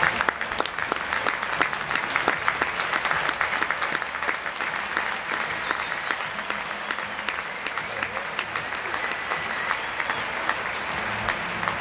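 A large audience applauding with dense, steady clapping.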